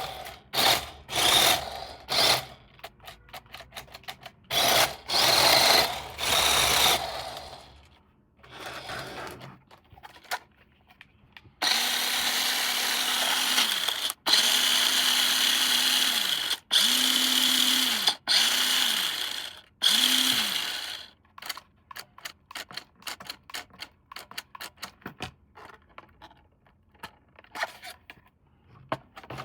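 Small electric motor of a toy RC car whirring in about five bursts, each spinning up, holding a steady whine and winding down, after several seconds of rasping handling noise. Light plastic clicks and taps follow.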